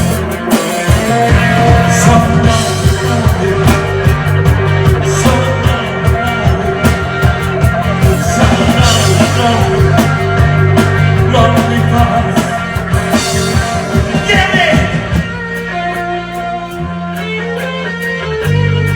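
Rock band playing with electric guitar, bass and drum kit. The drums hit steadily, then drop out about fifteen seconds in, leaving held guitar and bass notes.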